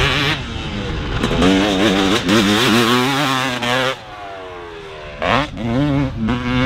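Dirt bike engine revving hard, its pitch climbing and dropping with each throttle and gear change. About four seconds in the revs fall away for a second, then come back in several quick, sharp revs.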